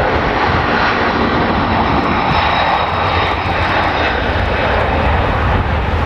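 Airplane engine sound: a steady drone with a low rumble under a hissy wash, unbroken throughout.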